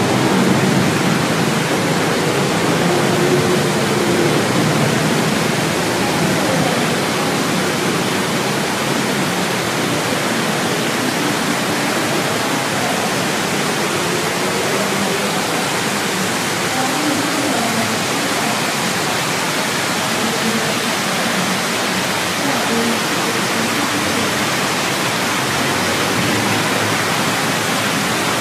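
Steady, even rushing noise that holds without a break, with faint voices in the background early on.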